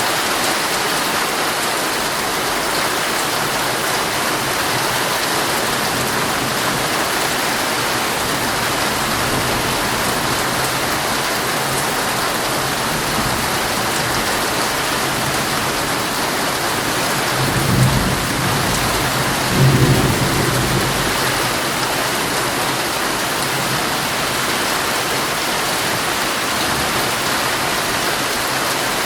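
Heavy rain drumming steadily on a tent, an even, dense hiss. About two-thirds of the way through come two short low rumbles a couple of seconds apart.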